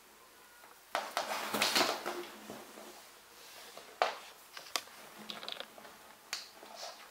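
Cat scrambling inside a fabric play tunnel, the tunnel's nylon rustling and crinkling. About a second in comes the loudest burst of rustling, lasting about a second and a half, then two sharp clicks and a few shorter rustles.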